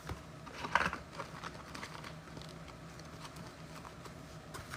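Faint handling noises of trading cards and packaging on a table: scattered light taps and clicks, with a short louder rustle a little under a second in.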